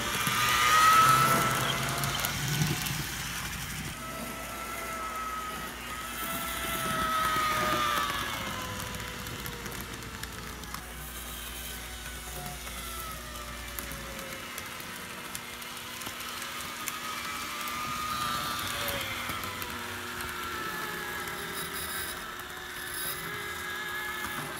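The small MU-2 electric motor of a freshly serviced TYCO HO-scale diesel locomotive running, a whine whose pitch slowly rises and falls as the train goes around the layout, loudest about a second in as it passes close, with the wheels lightly clicking on the track.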